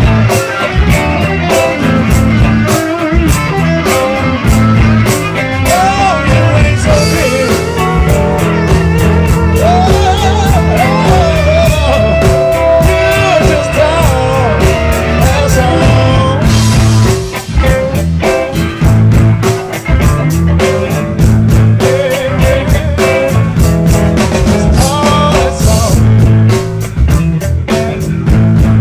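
Blues band playing: electric guitar lead with bent notes over bass and drums keeping a steady beat.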